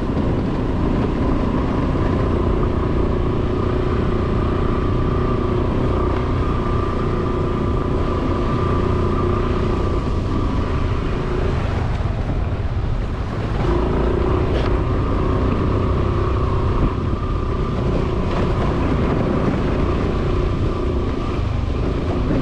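Motorcycle engine running steadily while riding, easing off for a moment about halfway through and then pulling again.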